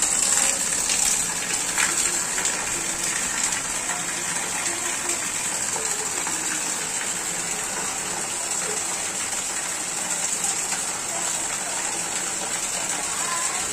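Heavy rain with a stream of runoff water pouring from the roof edge and splashing onto the ground and a drain grate: a steady gushing noise.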